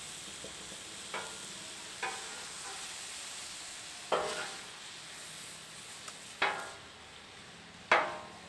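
Cut-up steak in soy sauce sizzling steadily on a Blackstone flat-top steel griddle while metal spatulas stir it. The spatulas strike and scrape the griddle five times, each with a short metallic ring, the last two loudest.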